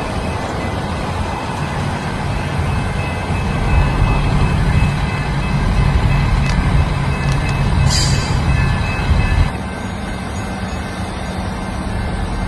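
A train running past close by: a heavy, steady low rumble of engine and wheels that drops away abruptly about three-quarters of the way through.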